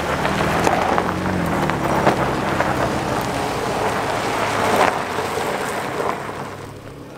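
Nissan Frontier pickup truck rolling slowly over gravel: tyres crunching on loose stones with the engine running low underneath. The noise fades away in the last second or so as the truck moves off.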